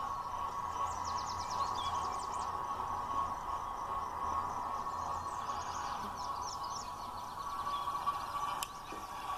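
OO gauge model class 08 diesel shunter running along the track with a steady electric hum. Birds chirp in two short spells in the background, and there is a single sharp click near the end.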